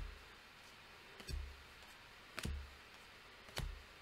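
Baseball trading cards set down one at a time on a pile on a table: a soft tap with a light thud roughly every second, four times.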